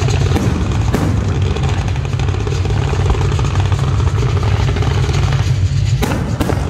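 Aerial fireworks shells bursting in a continuous heavy low rumble of booms, with sharp cracks about half a second in, at one second, and twice near the end.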